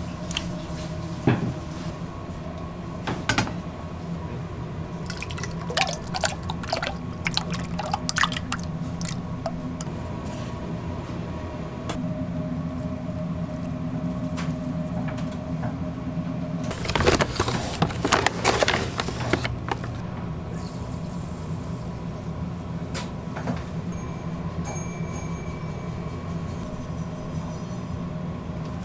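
Sugar scooped and poured into a stainless-steel mixing bowl of egg yolks and melted butter, with a scoop clicking and knocking on the bowl. The longest and loudest pour comes a little past halfway, over a steady hum of bakery machinery.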